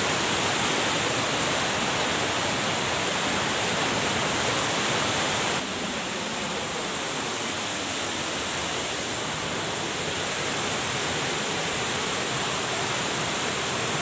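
Steady rush of falling and fast-flowing water, an even noise with no pattern in it, from a waterfall and then a swift stream. About five and a half seconds in it drops abruptly to a slightly lower level.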